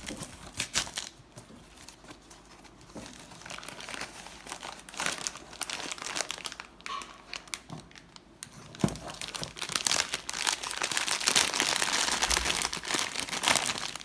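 Packaging being crinkled, rustled and torn open by hand, with dense crackling that grows louder and busier from about nine seconds in.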